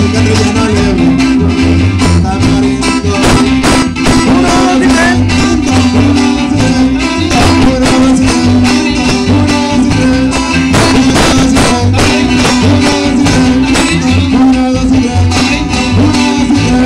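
A live, amplified norteño trio plays with a steady strummed rhythm: bajo sexto, acoustic guitar and electric bass.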